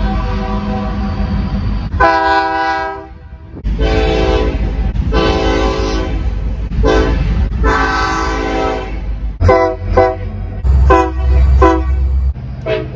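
Train horn sounding a series of blasts: several long held blasts, then a quick run of short toots near the end, over a low rumble.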